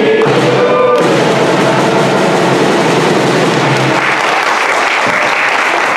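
A group singing with snare drums, breaking off about a second in into loud applause.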